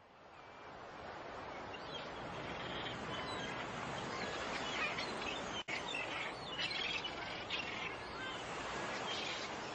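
Gulls calling in short chirps over a steady rushing background of sea noise, which fades in at the start. The sound cuts out for a moment a little past halfway.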